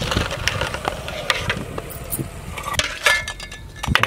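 Perforated metal skimmer scooping hard-boiled eggs out of a pot of hot water and tipping them onto a metal plate: a run of sharp clinks and knocks of metal on metal and eggs on metal, loudest about three seconds in.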